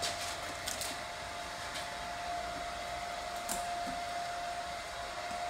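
Handheld hair dryer running steadily: a constant whine over an even hiss.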